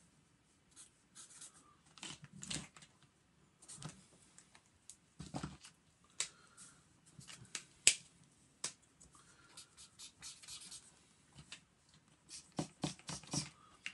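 Felt-tip marker pens scratching on sketchbook paper in short colouring strokes, with scattered sharp clicks and knocks of pens and caps being handled, the loudest click about eight seconds in.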